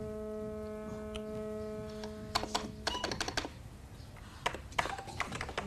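Quick typing on a computer keyboard in two short bursts, about two and a half seconds in and again near the end. A held chord of background music sounds first and dies away about three seconds in.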